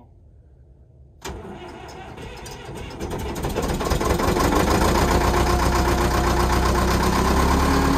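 Track loader's diesel engine firing up on a cold start after sitting for months in the cold. It catches suddenly about a second in, builds over the next few seconds and settles into a steady run.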